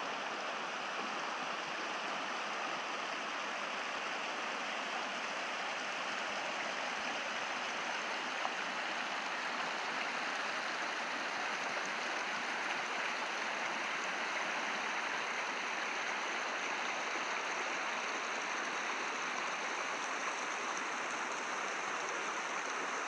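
Mountain stream running over rocks: a steady, unbroken rush of water.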